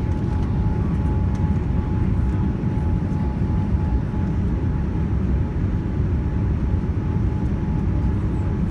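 Steady in-flight cabin noise of a Boeing 787-9 airliner on descent: a continuous low rumble of engines and airflow, with a faint steady high tone running through it.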